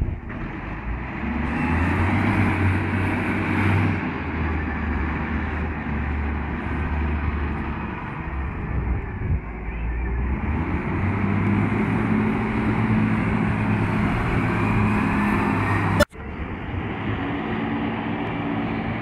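Wheel loader's diesel engine running under load while working a silage pile, its note rising and falling as it works. The audio drops out for an instant near the end.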